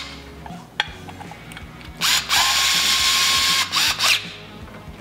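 Cordless drill-driver running for about two seconds with a steady whine, driving a bolt into a chrome engine cover, with a short dip just before it stops. A single click comes about a second in.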